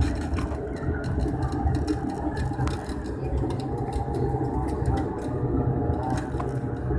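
Airliner cabin noise after landing: a steady, fairly loud rumble of the engines and airframe, with a few faint steady tones and light clicks.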